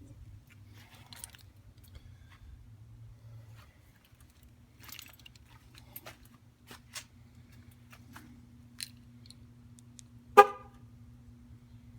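Scattered light clicks and rattles, then about ten and a half seconds in a single short horn chirp from a 2013 Jeep Wrangler JK, the loudest sound here.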